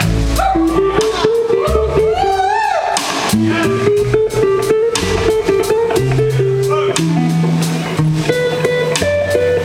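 Live blues-rock band playing: electric guitars trading lead lines, one a slide guitar with gliding notes, over bass and drums.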